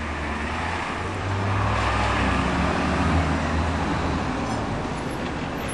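A bus passing with its diesel engine running, growing louder over the first two or three seconds, then easing off, over road traffic noise.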